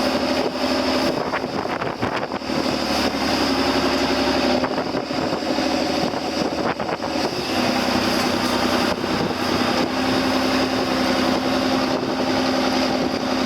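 A boat's engine runs steadily underway, its pitch shifting a couple of times, with wind buffeting the microphone.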